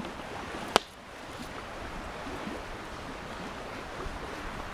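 Steady rushing outdoor background noise, with one sharp click just under a second in.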